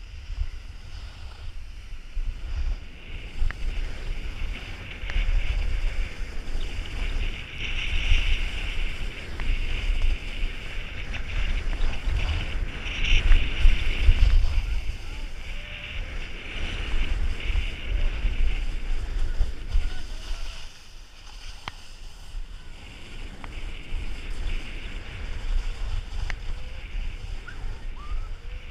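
Skis hissing and scraping over firm snow on a fast downhill run, with wind buffeting the camera's microphone as a low rumble. The scraping swells in loud surges about eight and thirteen seconds in, then eases about two-thirds of the way through.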